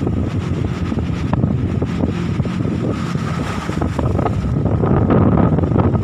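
Strong wind buffeting the microphone: a heavy, low, steady noise that grows louder from about four and a half seconds in.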